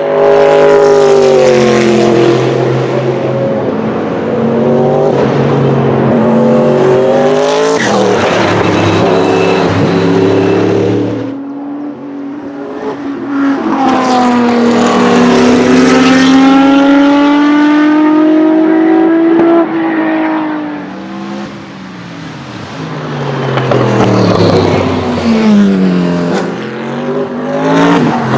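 Sauber-Mercedes C11's 5.0-litre twin-turbo V8 racing engine at speed. Its pitch falls at first, climbs in one long rise under acceleration, then drops sharply and dips several times with gear changes near the end.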